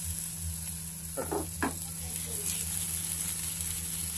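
Chopped onions and garlic sizzling in oil in a frying pan on a gas hob, over the steady low hum of a kitchen chimney fan.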